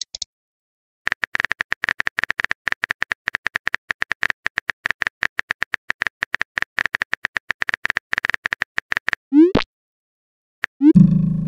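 Rapid virtual-keyboard tapping clicks of a texting app typing out a message, then a short rising pop as the message is sent. A second rising pop with a lower ringing tone comes about a second and a half later.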